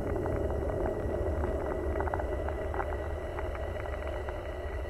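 A steady low rumble with faint, irregular clicks scattered through it and a thin steady tone above.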